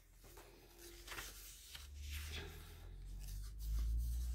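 Glossy paper catalogue pages being handled and turned, a soft rustling and rubbing of paper, with a low rumble building in the last second or so.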